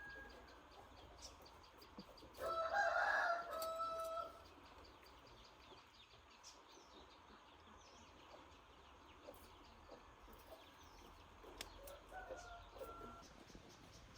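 A rooster crowing twice: a louder crow about two seconds in that lasts about two seconds, and a fainter one near the end, over faint background chirps and ticks.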